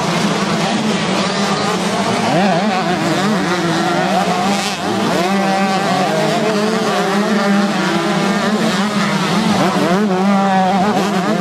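Several 125cc two-stroke motocross bikes revving hard through a turn, their engine notes rising and falling over one another as they pass, over a steady low drone.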